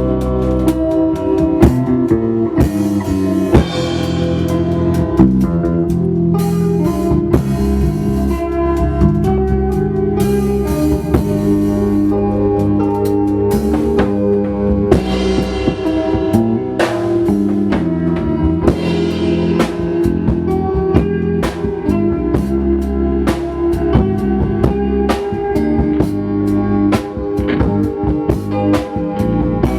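Live band music: drum kit, bass and guitar playing together through a sound check.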